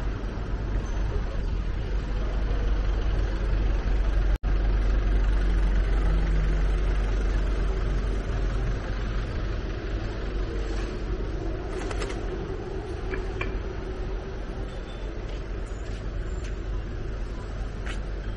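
Steady city traffic noise, cars running on the road with a deep rumble underneath. The sound cuts out for an instant about four seconds in.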